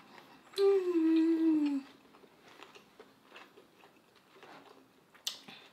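A person hums a long, loud 'mmm' of enjoyment through a mouthful of food, its pitch sliding down. It starts about half a second in and lasts just over a second. Faint chewing and small clicks follow.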